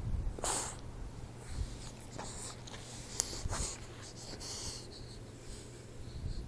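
Four-month-old boxer puppy snoring in its sleep, with irregular noisy breaths about once a second. There is a short sharp click about three seconds in.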